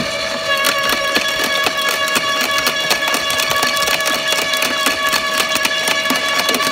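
Makita UD2500 electric garden shredder running with a steady gear whine while its slow-turning cutting disc pulls in and crushes a branch, with a rapid, irregular series of cracks and snaps of splintering wood.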